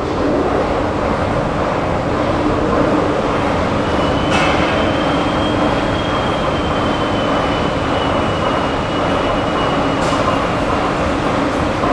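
Metro station escalator running: a steady mechanical rumble with a low hum, and a thin high whine from about four seconds in until about ten seconds.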